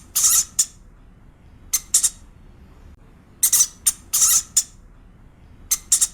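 Hamster squeaking: short, sharp, high-pitched squeaks in small clusters of two or three, several times.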